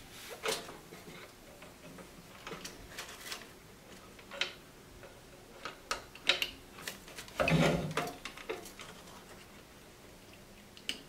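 Handling noise of a sealed lead-acid battery and its wire leads being moved by hand: scattered light clicks and rustles of the case and spade connectors, with a louder clatter about seven and a half seconds in.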